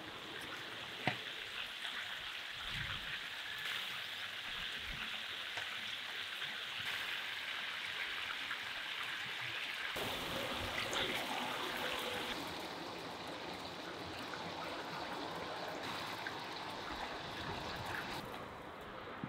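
Pike fish cutlets sizzling in hot oil in a frying pan, a steady crackling hiss, with one sharp tap about a second in.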